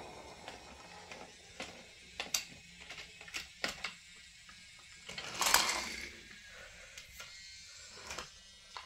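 Battery-powered Brio toy locomotive running on wooden track: scattered clicks and knocks from its wheels over the track joints and bridge pieces, with a louder half-second rush of noise about five and a half seconds in.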